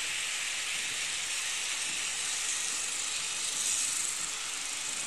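A steady hiss.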